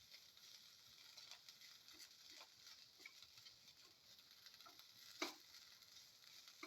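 Faint sizzling of shredded chicken sautéing in oil in a pan, with light clicks of a spoon stirring and one sharper click about five seconds in.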